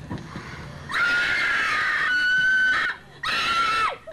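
A person screaming on stage: two long, high-pitched screams, the first rising slightly partway through and the second falling away at its end.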